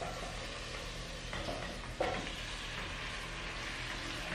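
Raw ground beef sizzling in hot butter in a pot as it is stirred with a silicone spatula, with two short knocks about a second and a half and two seconds in.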